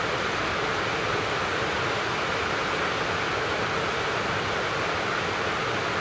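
Steady rain falling over a town, an even hiss with no breaks.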